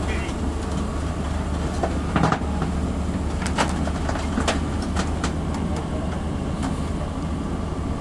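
Heavy diesel engine running steadily at low speed, with scattered sharp metallic clanks and knocks.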